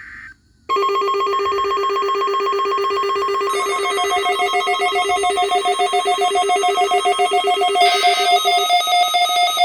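A brief buzzy data burst, then a loud electronic alert tone: several steady pitches trilling rapidly like a telephone bell, with more tones layering in about three seconds and eight seconds in.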